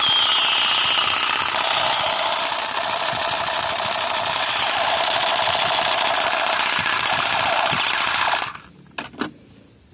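Battery-powered 'Superior Pistol' toy revolver playing its electronic firing sound, a rapid buzzing rattle with a short falling whine at the start, that runs for about eight and a half seconds and cuts off suddenly. A couple of light clicks follow.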